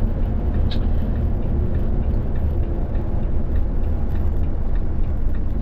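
Volvo SC7 coach's diesel engine and running gear heard from inside the cabin, a steady low rumble.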